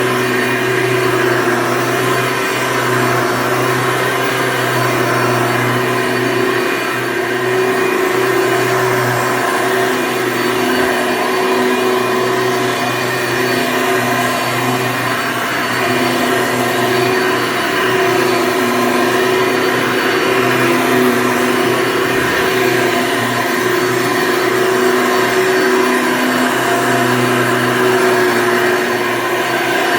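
1993 Hoover Elite U4671-930 upright vacuum cleaner running steadily, a motor hum with a whooshing airflow whose lower tone shifts slightly now and then.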